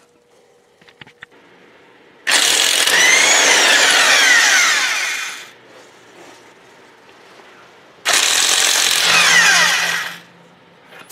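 Impact wrench running on a truck's wheel lug nut in two bursts, one of about three seconds and one of about two seconds, working a tight nut loose.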